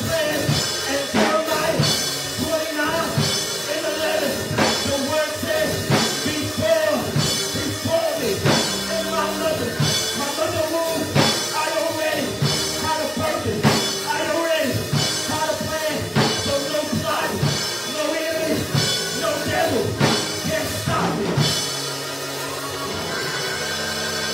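Live church praise music: a man singing into a handheld microphone over a drum kit playing a steady beat. About 22 seconds in, the drums and voice drop out and held chords carry on.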